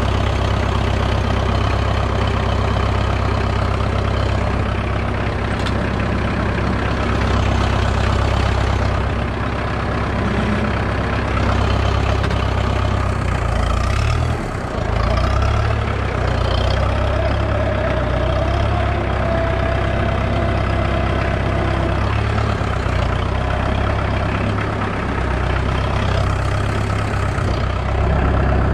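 International B-275 tractor's four-cylinder diesel engine idling steadily after a glow-plug start, kept running so the replacement alternator begins charging the battery.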